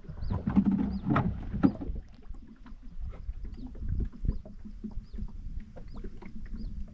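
Wind rumbling on the microphone, with scattered small clicks and faint, repeated high chirps.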